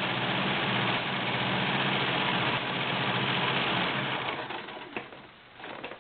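Kenmore 1703 all-metal sewing machine running steadily at speed, stitching a cam-driven stretch pattern. It slows and stops about four seconds in, followed by a few light clicks.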